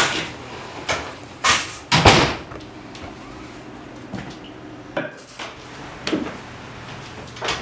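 Kitchen clatter: a series of knocks and bangs, like cupboard doors and things being handled at a counter. The loudest is a double bang about two seconds in, followed by fainter scattered clicks.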